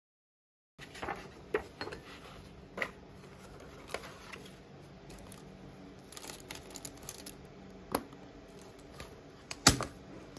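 Stationery being handled on a desk: scattered clicks and taps of pens and small objects, and the rustle of a plastic pouch of pens, with a sharp knock near the end.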